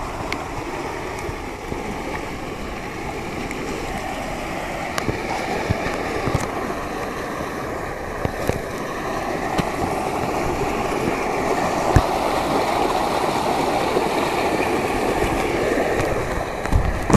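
Flood-swollen stream rushing and splashing, a steady wash of fast water that grows somewhat louder in the second half. A few brief knocks sound over it, the clearest about twelve seconds in.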